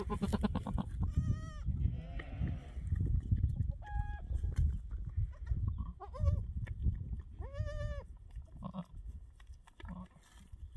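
Goats bleating: about five short, quavering bleats, with a low rumble underneath.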